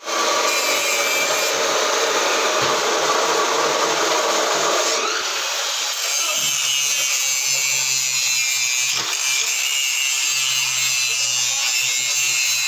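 Handheld angle grinder grinding a metal workpiece clamped in a bench vise, a loud, continuous grinding noise. Its tone shifts higher about five seconds in.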